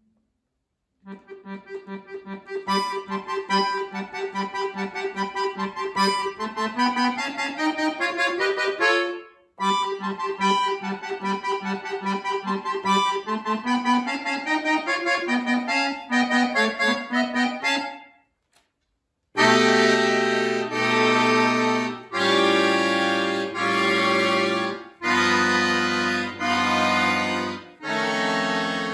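Chromatic button accordion played solo: after about a second of silence, a phrase of quick, short repeated notes with a rising run is played twice, then after a brief pause come louder, long-held full chords over deep bass notes, each chord cut off with a short gap.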